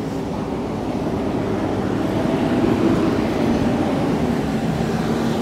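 Street traffic with a nearby vehicle engine running, a low hum with a steady pitched drone that grows louder around the middle.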